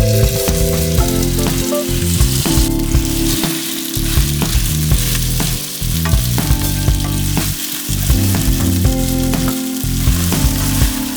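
Marinated chicken pieces sizzling in a hot pan while being stirred, with a steady hiss of frying oil.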